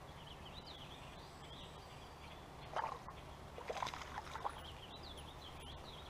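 Quiet creek-side outdoor ambience with faint, scattered bird chirps over a steady low background, and a few short, sudden noises about three to four and a half seconds in.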